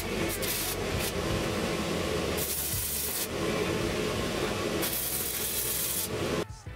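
MIG welder arc crackling and hissing as tack welds are laid on a steel-tube frame, in several bursts, with a sudden stop near the end.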